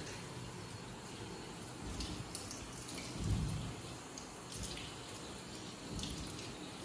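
Water running from a tap into a washbasin, with small splashes now and then as someone washes under it.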